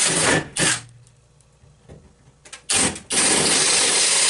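Power drill with a number 7 bit drilling the tap holes for 1/4-20 screws in metal. It runs, stops about a second in, gives a couple of short blips, and runs steadily again from near the three-second mark.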